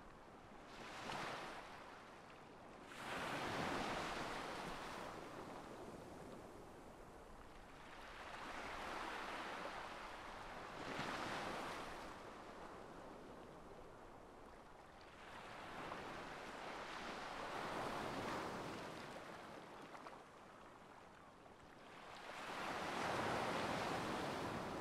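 Ocean surf: waves washing in as slow swells of rushing noise that rise and fade every few seconds.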